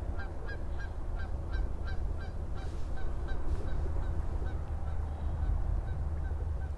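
Geese honking, a run of short calls several times a second that grows sparser and fainter over the last few seconds, over a low steady rumble.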